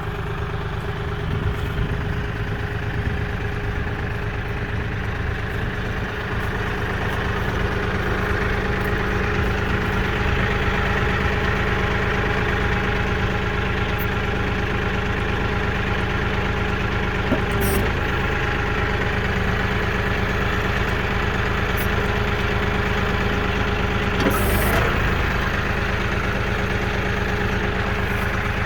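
Compact tractor's diesel engine running steadily while the backhoe is worked, picking up a little about six to eight seconds in. Two short clanks about 18 and 24 seconds in.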